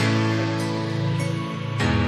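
Background music with held instrumental notes; the chord changes near the end.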